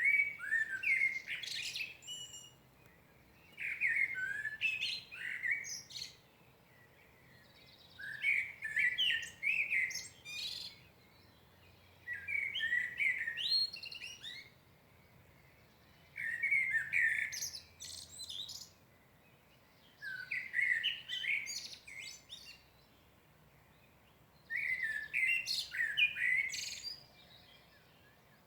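A songbird singing at dawn: seven short phrases of about two seconds each, repeated roughly every four seconds with pauses between, each a run of fluted notes ending in thin high twitters.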